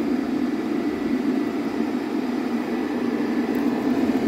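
Cooling fans of a custom charger case running steadily: a constant rush of air with a faint steady high tone in it.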